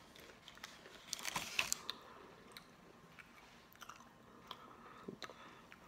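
Close-up chewing of a crisp, chewy amaretti cookie: a cluster of crunches about a second in, then sparse soft clicks of chewing.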